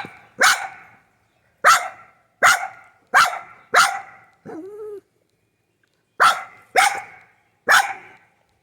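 A dog barking in short sharp barks at a squirrel: about five barks, a brief whine, then three more barks.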